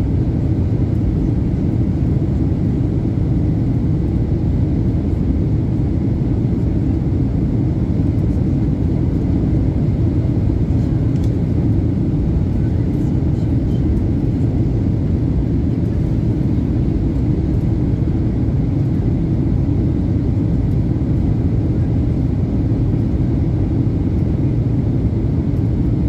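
Airliner cabin noise: a steady low rumble of engines and airflow, heard from inside the plane.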